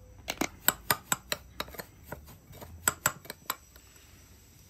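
A dozen or so sharp taps and clicks, about three or four a second, from a spice jar and a glass bowl as dried parsley is shaken out over panko crumbs. They stop about three and a half seconds in.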